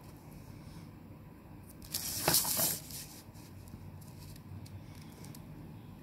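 A brief scraping rustle of paper, about two seconds in, as a steel ruler is shifted across a sheet of paper, followed by a few faint pencil-and-ruler clicks.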